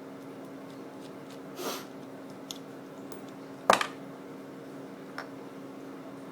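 Small plastic clicks and knocks as a PC webcam is taken apart by hand, with a brief rustle and then one loud sharp knock a little past the middle. A steady low hum runs underneath.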